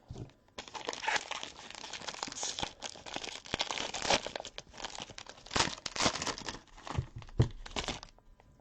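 A wrapper on a pack of 2013 Panini Black football cards being torn open and crinkled by hand, with crackling and a few sharp snaps, stopping shortly before the end.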